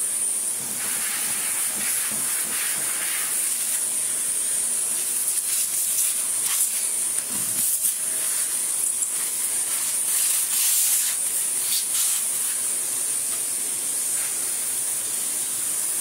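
Victor V9 cordless vacuum running steadily: a high whine over rushing air as its nozzle sucks caked dust and fluff off the parts of a clogged cordless vacuum. The tone shifts briefly now and then as the nozzle moves across the dirt.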